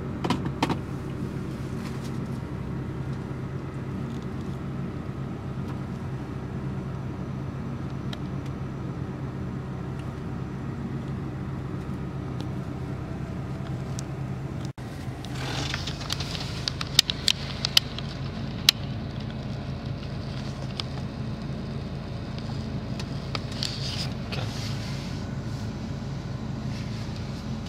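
Off-road 4x4's engine running steadily at low speed on a rough dirt track, heard from inside the cab. After an abrupt cut about halfway, a wider rumble of tyres on loose stones comes in, with several sharp clicks and knocks.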